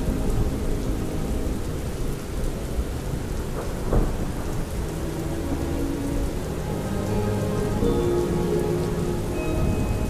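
Steady rain with rumbling thunder, and a sharp thunder crack about four seconds in. Faint music sounds under the storm in the second half.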